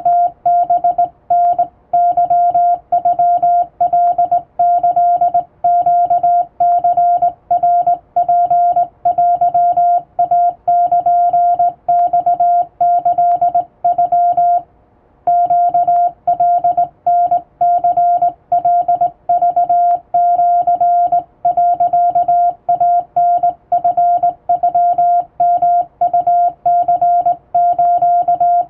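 Morse code sidetone sent by hand on a vertical straight telegraph key, spelling Japanese wabun code. A single steady mid-pitched beep keyed on and off in short and long elements, with a brief pause about halfway through.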